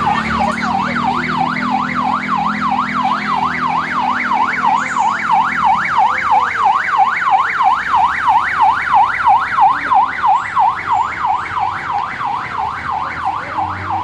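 Vehicle siren on a fast yelp, its pitch rising and falling rapidly about three to four times a second, with a steady low engine-like hum underneath that stops about six seconds in.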